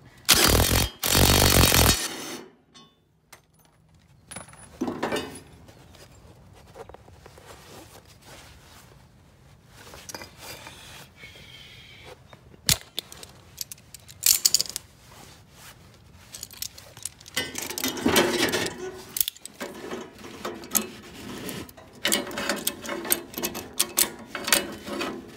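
Metal hand tools clinking and scraping on the underside of a rear-engine riding mower's deck as vise grips and a socket work the blade and spindle bolts loose, with scattered clicks and clanks throughout. A loud burst of noise lasting a couple of seconds opens it.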